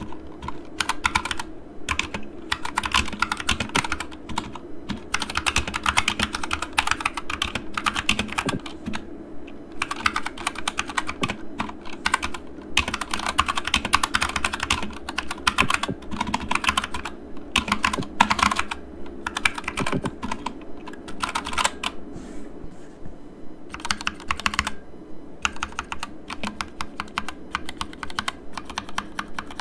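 Typing on an Akko 3068 Silent 60% mechanical keyboard with Gateron Pink switches: fast runs of keystrokes broken by short pauses, with a longer pause a little past the middle.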